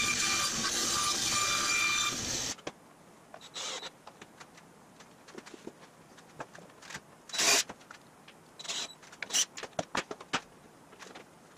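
Band saw running and cutting through an OSB sheet, a steady whine that cuts off abruptly about two and a half seconds in. After that come scattered knocks and scuffs of OSB pieces being handled and set in place, the loudest a short scuff about halfway through.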